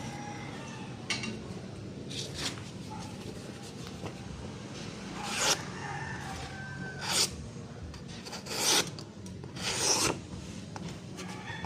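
Rasping strokes of hand abrading work, such as filing or sanding, about half a dozen at uneven intervals, the loudest in the second half, over a steady low hum.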